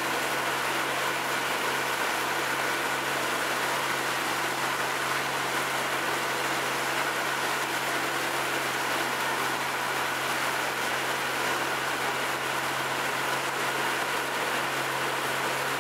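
Motorboat engine running steadily, heard from on board, as a constant low hum over an even hiss.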